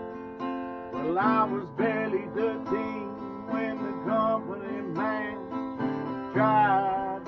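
Acoustic guitar strummed, with a melody line whose pitch bends and slides coming in over the chords about a second in.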